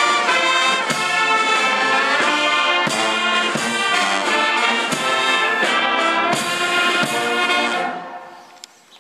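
Brass band of trumpets and sousaphones playing a slow tune in full chords. The music fades and stops about a second before the end.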